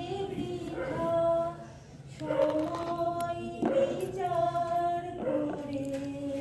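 A woman singing a slow song unaccompanied, holding long notes that step up and down, with a short pause for breath about two seconds in.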